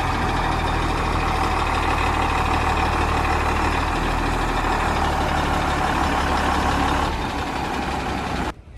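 Heavy diesel engine running steadily at a loud level, easing slightly about seven seconds in, then cutting off suddenly near the end.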